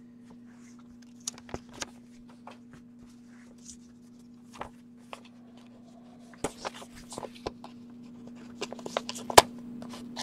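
Paper envelope being handled and slit open with a blunt letter opener: scattered rustles and crackling ticks of paper, sparse at first and busier over the second half, with one sharp crack near the end. A steady low hum runs underneath.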